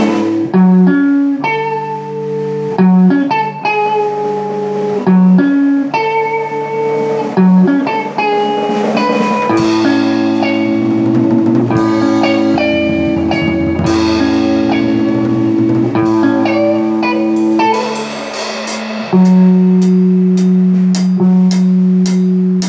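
A band playing live: an electric guitar rings out chords over sustained low notes, with a new chord struck about every two seconds. Near the end the drums come in with quick, steady cymbal and drum hits.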